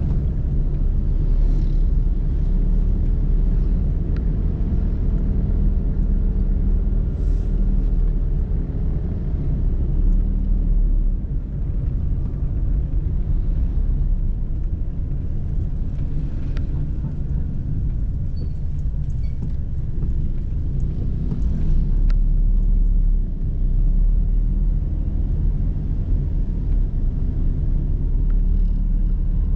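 Steady low rumble of a vehicle being driven along a road: engine and tyre noise.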